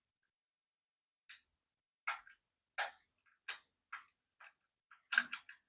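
A run of short, sharp clicks from a hand screwdriver with a ground-down bit working a triangular-head screw out of a plastic USB adapter case. The clicks come about every 0.7 s at first and quicken near the end, as the stubborn screw comes loose.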